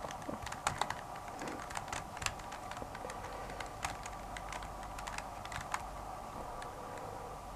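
A 3x3 speed cube being scrambled, its plastic layers clicking as they are turned in quick, irregular runs. The turns come thickest in the first three seconds and thin out after, over a steady faint hum.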